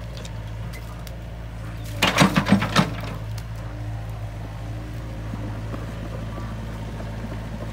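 Hitachi Zaxis mini excavator's diesel engine running steadily while it digs and lifts a bucket of mud. A short cluster of loud, sharp knocks comes about two seconds in.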